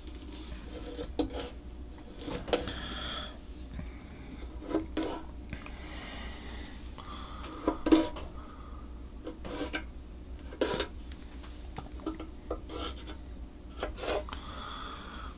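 A pen scratching marking lines on wood inside a steel-body resonator guitar, with scattered light knocks and taps against the body throughout.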